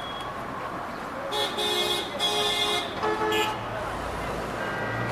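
Vehicle horns honking in street traffic: three short steady honks between about one and a half and three and a half seconds in, over a constant hum of traffic.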